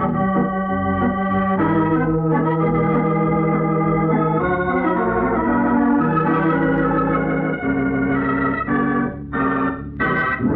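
Organ music cue closing the radio drama's final scene: sustained chords that change every second or so, with two brief breaks near the end.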